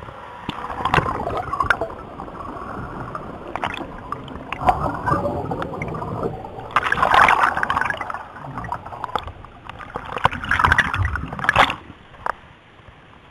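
Water rushing, splashing and gurgling around a helicopter escape-training cabin as it is submerged, with knocks and bumps. It comes in surges, loudest about seven seconds in and again around ten to eleven seconds, and dies down about twelve seconds in.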